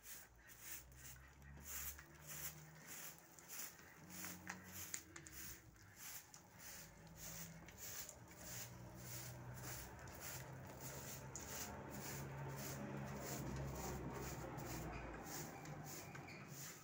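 Straw broom sweeping a concrete floor in quick repeated strokes, about two or three a second, with low drawn-out tones underneath that grow stronger in the second half.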